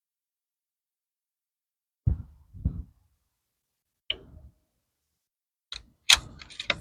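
Handling noise: a few low thumps, then a quick cluster of sharp clicks and knocks near the end, as air rifle gear is set down and clicked into place.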